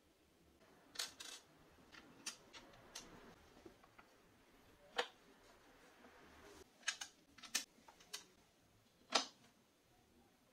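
About a dozen light, irregular clicks and taps as a steel washer and a thin wooden strip are handled and set on a table saw's metal top; the sharpest taps come about 5 and 9 seconds in.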